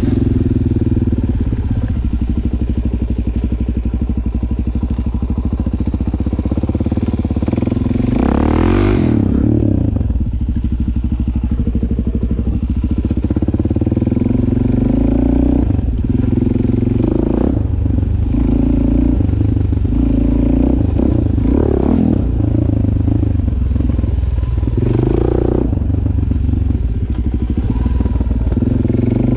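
Dirt bike engine running under way, its pitch rising and falling several times as the throttle is opened and closed, with a sharp surge about nine seconds in.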